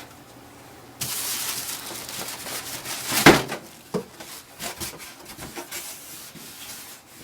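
Cardboard packing rubbing and scraping as an inkjet printer is pulled out of its shipping box. The noise starts about a second in, with a loud thud about three seconds in and a smaller knock just after.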